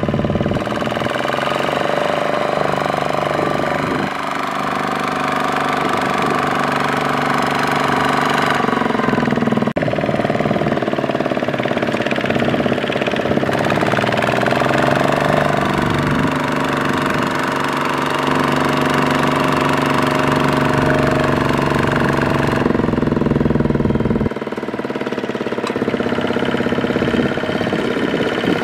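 Single-cylinder diesel engine of a two-wheel walking tractor running hard under load as it pulls a loaded trailer through deep mud, its chugging note rising and falling in pitch several times, with a few abrupt jumps.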